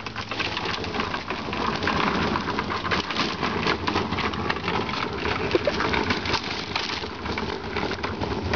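Homemade cardboard-and-paper float rattling and rumbling as a bicycle tows it over a concrete sidewalk, a steady dense clatter of small knocks.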